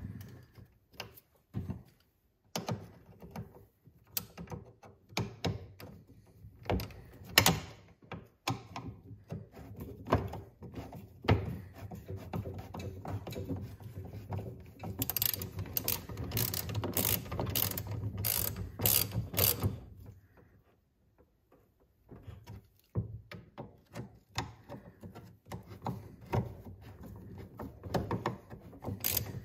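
Hand socket ratchet clicking in quick runs as the nuts on a snowthrower's rubber auger-paddle bolts are tightened, with light knocks of tools on the metal auger. The clicking is densest about halfway through, with a short pause about two-thirds of the way in.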